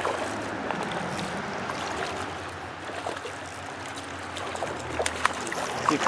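A hooked smallmouth bass splashing at the surface of the creek as it is fought and reeled in, over the steady wash of moving water, with a few sharper splashes near the end.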